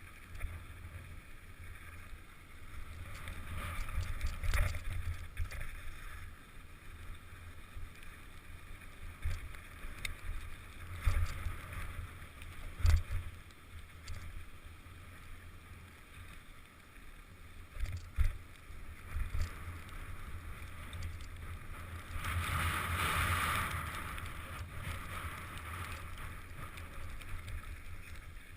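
Mountain bike rolling down a dirt trail: steady rumble with wind buffeting the microphone, and several sharp knocks as the bike hits bumps. A louder hissing rush comes about 22 seconds in.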